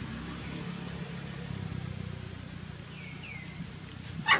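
A motor vehicle's engine running steadily with a low hum. Two short high chirps come about three seconds in, and a brief, loud, sharp sound comes near the end.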